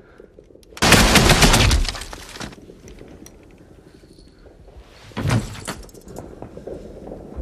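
A burst of automatic gunfire, about a second long, and a shorter second burst about five seconds in.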